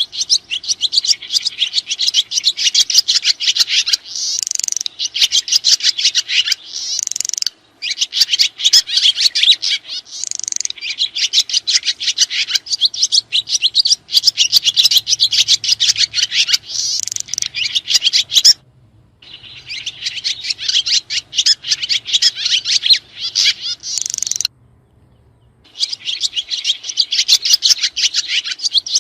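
Swiftlets twittering: dense runs of fast, high chirps that cut off abruptly into a second or so of silence a few times.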